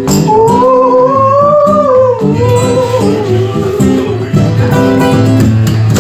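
A band playing a blues song: strummed acoustic guitar over bass and drums, with a lead melody line that slides up and down through the first three seconds or so.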